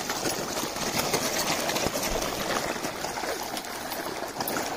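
Water splashing and churning as a dense shoal of large fish jostles and snaps at the surface for thrown feed, a steady crackle of many small splashes.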